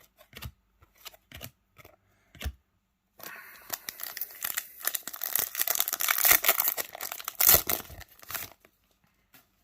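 A trading card pack wrapper being torn open and crinkled: a few light handling taps, then from about three seconds in a dense crackly tearing and rustling that lasts about five seconds.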